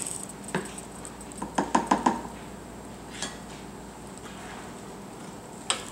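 A ceramic soup spoon clinking and knocking against a plastic batter tub: a few light clicks, several in quick succession about two seconds in, over a faint steady background.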